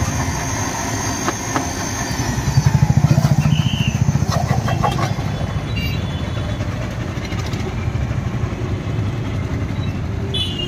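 Street traffic noise, with a small motor vehicle's engine running loudly close by for a couple of seconds, starting about two seconds in.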